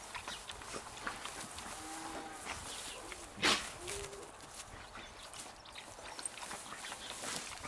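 A dog sneezes once, a short sharp burst about three and a half seconds in, amid faint scattered clicks and rustles.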